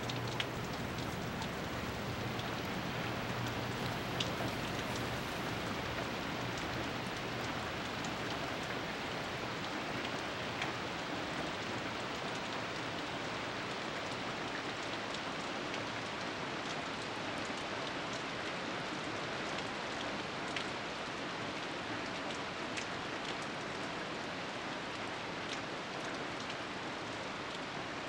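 Steady rushing hiss of water, with scattered sharp drop-like ticks and a low hum that fades out in the first few seconds.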